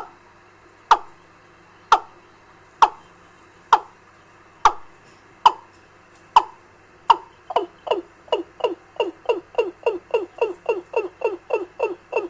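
Recorded 'gà' (fowl) lure call played through a bird-trapping amplifier's speaker. Short notes each slide downward in pitch, about one a second at first, then speed up to roughly three a second about seven seconds in.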